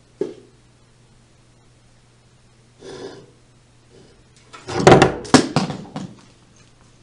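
Knocks and clattering: one short knock, a brief scrape about three seconds in, then a loud run of bangs and rattles around five seconds in as the camera is jostled, over a steady low hum.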